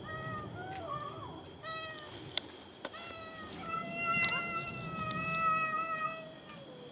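Cat meowing for food: a few short meows, then one long, steady meow of about two and a half seconds that drops in pitch as it ends. A single sharp click about two and a half seconds in.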